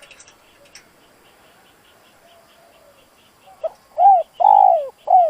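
Spotted dove cooing: a short low note about three and a half seconds in, then a run of loud coos, each arching and falling in pitch, the third the longest. This is a caged male's call of the kind used to stir up and lure wild doves.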